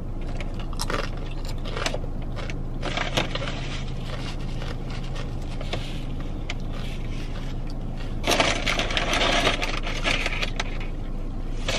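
Close-miked chewing and crunching of food, with small clicks and scrapes, over a steady low hum in a car cabin. The chewing is louder and noisier for about three seconds, starting about eight seconds in.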